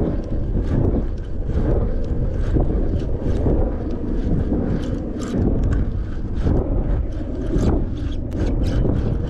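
Wind buffeting the action camera's microphone: a steady rumble, with scattered sharp clicks throughout.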